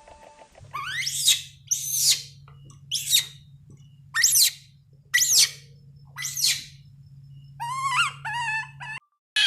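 A bird calling: six loud, steeply rising calls about a second apart, then a quick run of shorter chirps near the end, over a steady low hum.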